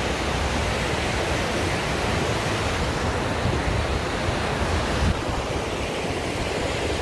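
Steady rushing of a whitewater mountain stream mixed with heavy rain, and wind buffeting the microphone in uneven low rumbles.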